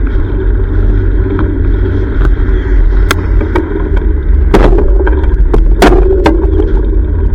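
Steady low rumble of wind and road picked up by a GoPro on a moving bicycle. Several sharp clicks and knocks come through, the loudest two about halfway in.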